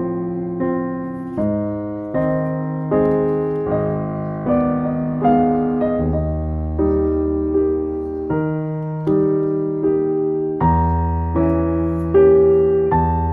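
Background piano music: slow, evenly paced chords, a new one about every three-quarters of a second, each fading away after it is struck.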